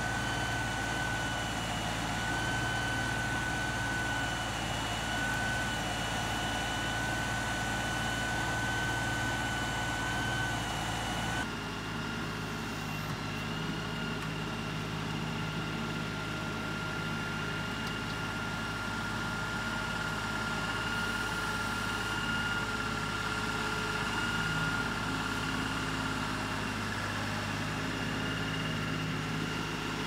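LS XR3135 compact tractor's diesel engine running steadily while its backhoe and then its front loader are worked, with a steady high whine over the engine. The sound changes abruptly about a third of the way in.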